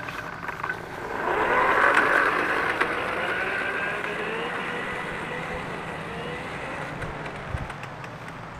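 A vehicle passing by: a noisy engine sound that swells to its loudest about two seconds in, then slowly fades away.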